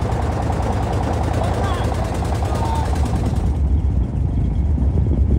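Motorised wooden fishing boat's engine running with a fast, regular chugging over a low rumble; about three and a half seconds in the chugging drops away and the low rumble continues.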